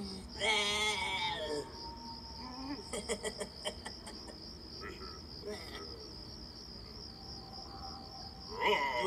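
Cricket chirping steadily as a high pulsing trill. An animated jack-o'-lantern character's wavering, cartoonish voice sounds at the start and again near the end, with a quick run of clicks around three seconds in.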